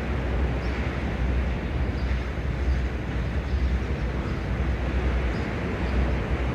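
Sea surf washing in as a steady rush, with wind rumbling on the microphone.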